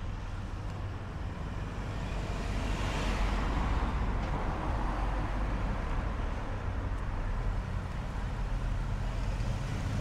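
Road traffic on a village street: a car passes close by, its tyre and engine noise swelling and fading about three to five seconds in, over a steady low traffic rumble.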